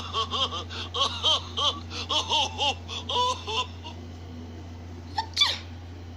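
Laughter sound effect: a quick run of high-pitched ha-ha syllables, about four or five a second, that stops about four seconds in. Near the end comes a brief sharp swish, over a steady low hum.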